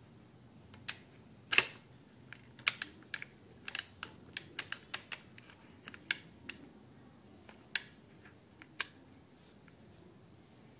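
Irregular sharp clicks and taps of a DSLR camera being seated and locked onto a tripod's pan head mounting plate, about a dozen, the loudest about one and a half seconds in, dying out a couple of seconds before the end.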